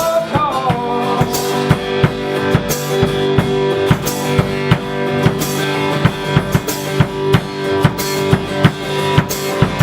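Rock band playing live: a drum kit beats steadily under held electric guitar chords, with the last sung word of a line in the first second.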